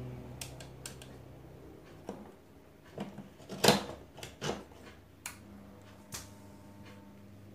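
Plastic clicks and knocks as the timer is handled and a plug is pushed into a power strip, loudest a little over three seconds in. About five seconds in, a steady low hum starts: the egg-turning rack's small geared motor running under the Omron DH48S-S timer's control.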